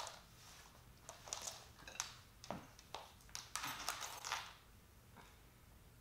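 Scattered light clicks and rustles of heavy-duty plastic zip-tie cuffs being picked up and handled, with a denser run of clicks a little past the middle.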